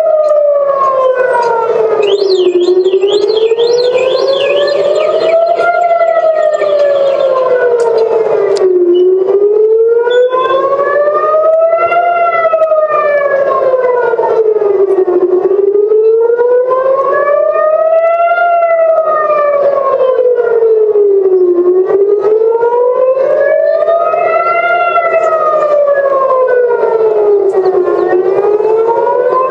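Civil-defense air-raid siren wailing, its pitch rising and falling slowly and peaking about every six seconds: the alert for incoming rockets. A second, faster warbling siren sounds briefly a few seconds in.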